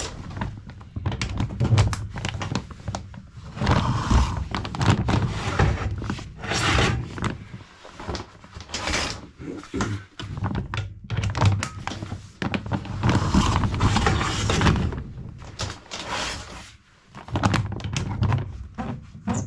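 Chimney sweeping rods knocking and scraping as they are pushed up the flue through a wood stove, with irregular thunks and rubbing noises.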